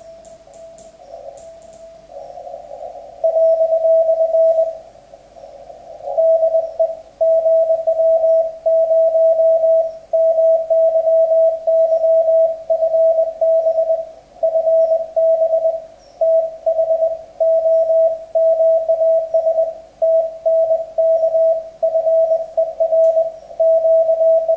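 Morse code (CW) tone from an amateur radio transceiver on the 40 m band, a single note of about 650 Hz keyed on and off into dots and dashes. It is faint and noisy for the first few seconds, then turns loud and clean about three seconds in.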